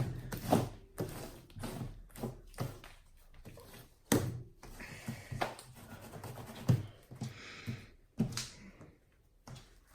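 Hands kneading and pressing homemade shampoo slime: irregular soft clicks and thumps, a few a second at first and then sparser, with no steady sound between them.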